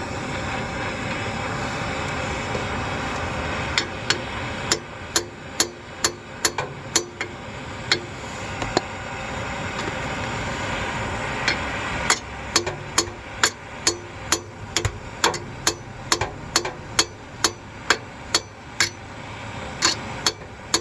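Hammer blows on a seized exhaust bolt, metal on metal, about two strikes a second with a short ring after each, in two runs, the second longer. Between the runs there is a steady hiss.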